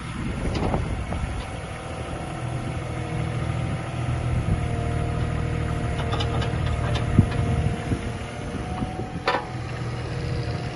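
JCB 18Z-1 mini excavator's diesel engine running steadily while its hydraulics work the boom and arm and slew the machine, a steady higher whine over the engine note from about two seconds in. A sharp knock about seven seconds in is the loudest moment, with a short clatter shortly before the end.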